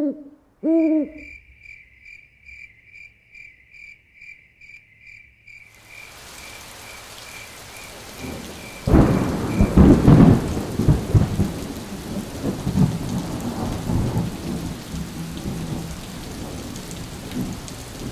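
Nighttime nature sounds: an owl-like hoot at the start and again a moment later, a high chirp repeating a little over twice a second, then rain setting in. About nine seconds in a clap of thunder rumbles, and the rain and rumbling go on.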